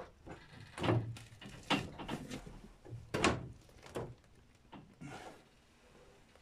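Irregular metal knocks and scrapes as a new stem strip is handled against a Kazanka 5M4's metal hull while rivets are set into its holes, the loudest knocks about a second in and just after three seconds.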